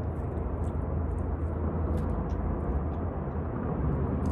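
Steady low outdoor rumble, with a few faint small clicks and ticks over it.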